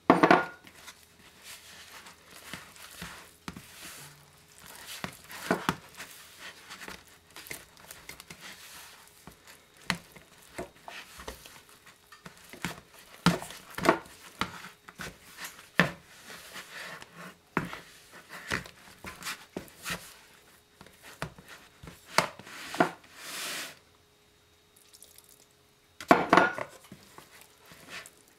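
Wet bread dough being mixed in a plastic bowl with a wooden stick and by hand: irregular squelches and knocks against the bowl, with a loud knock at the very start and another a couple of seconds before the end, after a short pause.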